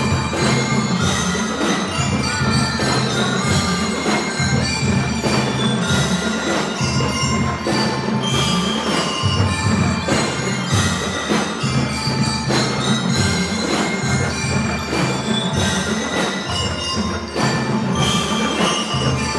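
A drum and lyre corps playing: metal bell lyres ring out a melody over a steady beat of marching drums.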